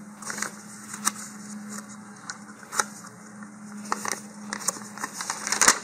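A paper instruction sheet rustling and crackling as it is unfolded and handled, with a few sharp crinkles, over a faint steady hum.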